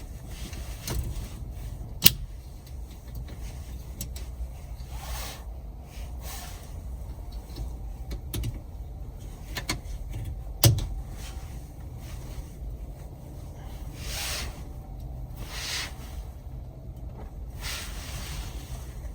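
Hands-on work on a car: two sharp clicks or knocks, about two seconds in and again near eleven seconds, with several short rustling swishes between, over a steady low rumble.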